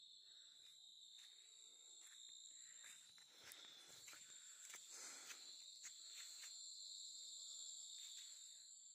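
Faint evening chorus of crickets, a steady high-pitched trilling at two pitches, with a few soft scuffs and clicks scattered through it.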